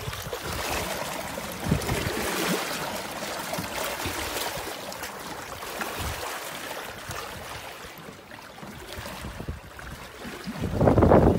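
Water rushing and trickling along a sailboat's hull as it sails, with a louder rush near the end.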